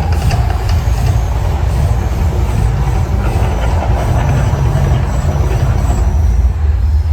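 Loud, steady deep rumble of the Mirage volcano's eruption effects, with a dense rushing hiss over it and no clear beat.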